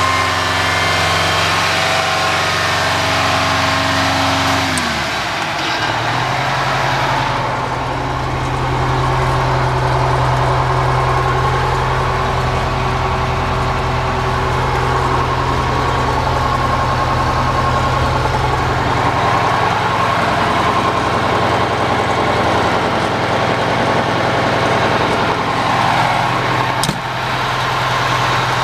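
Oshkosh M977 HEMTT's Detroit Diesel 8V92TA two-stroke V8 diesel running. It drops from fast idle to a low idle about five seconds in, then idles steadily. A sharp click sounds near the end.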